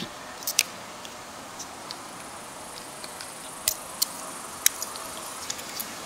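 Scattered light clicks and taps of two pocket multi-tools, a Ruike LD43 and a Victorinox Swiss Army knife, being handled and knocked against each other; the sharpest clicks come about half a second in and around the fourth second.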